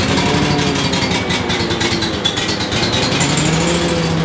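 An engine running, its pitch sliding down and back up, then holding steady near the end.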